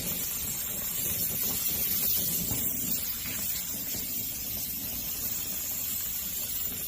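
Oxy-acetylene brazing torch flame burning steadily with an even hiss and low rumble, heating a copper joint.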